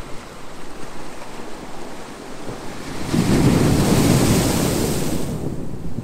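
Small ocean waves breaking and washing up a sandy beach. About halfway through, a louder surge of surf rushes in for about two seconds, then falls back.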